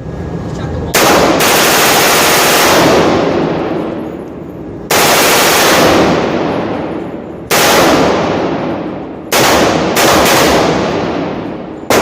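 AR-15 rifle with a Slide Fire bump-fire stock firing rapid bursts, about five in a row, each trailing off in a long echo.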